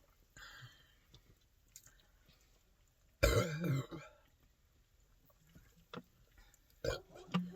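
A short, rough throat sound from a girl chugging carbonated soda, about three seconds in and lasting under a second. A few faint clicks and a brief low throaty sound follow near the end.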